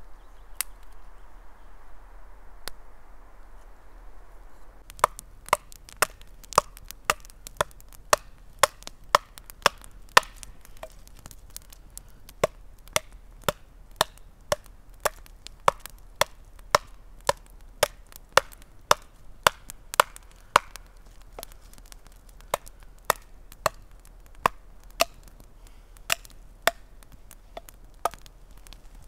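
Hatchet chopping into an upright stick of wood, sharp blows about two a second, starting about five seconds in. Before the chopping there is only a soft steady hiss with a couple of faint snaps.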